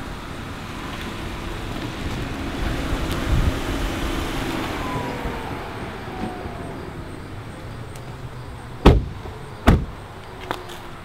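Chevrolet Malibu sedan driving up and pulling in: engine and tyre noise swells, peaks about three seconds in, then fades as the car slows. Near the end come two loud slams about a second apart, car doors shutting.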